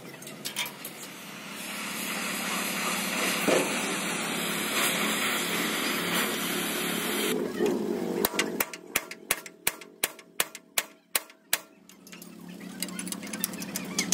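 Workshop noise: a steady rushing noise for about six seconds, then a run of about ten sharp knocks, roughly three a second, before the steady noise comes back.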